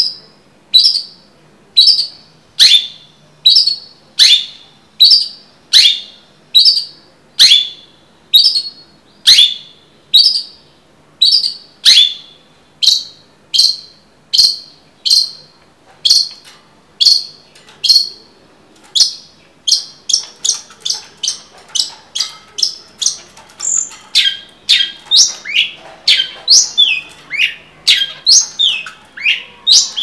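Long-tailed shrike (cendet) calling: a steady run of short, sharp calls about one a second, quickening about two-thirds of the way through to about two a second with more varied, falling notes.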